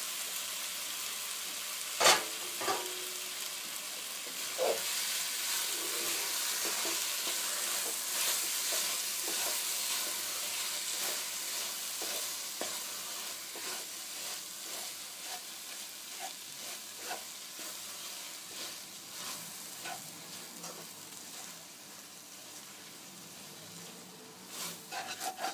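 Grated raw mango sizzling in a pan over low heat while a spoon stirs it, scraping and clicking against the pan. There is one sharp knock about two seconds in, and the sizzle slowly fades.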